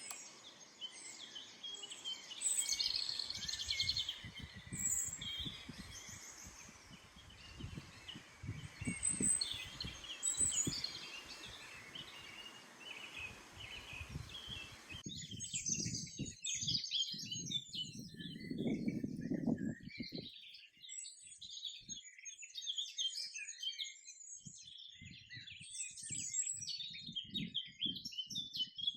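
Dawn chorus of many songbirds singing at once, a dense mix of trills, warbles and chirps. The background hiss stops abruptly about halfway through, and low irregular thuds run under the song for much of it.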